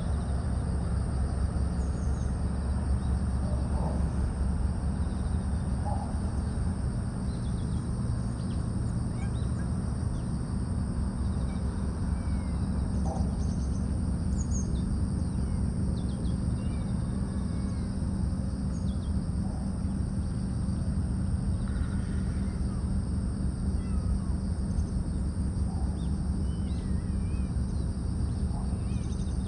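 Outdoor ambience: a steady low rumble under a constant high-pitched insect buzz, with short bird chirps scattered throughout.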